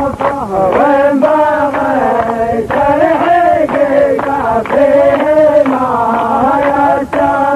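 Male voices chanting a drawn-out, wavering melody in the Saudi mawwal style of sung poetry, with sharp regular beats about three a second.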